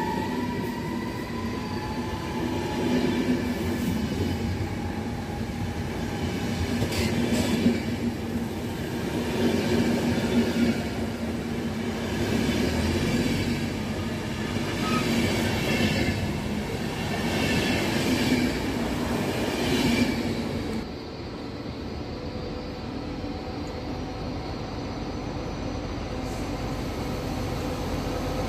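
RegioJet express passenger coaches rolling past close by, their wheels running on the rails, the sound swelling and fading every two or three seconds. About twenty seconds in, this gives way to a quieter, steadier rumble of a distant approaching train.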